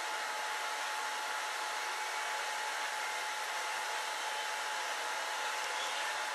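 Steady rushing hiss of water running into a spill-containment unit and filling its deploying bladder, with a thin constant whine underneath.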